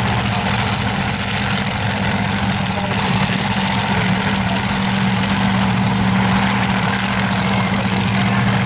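Slingshot dragster's engine idling steadily, an even pitched rumble with no revving.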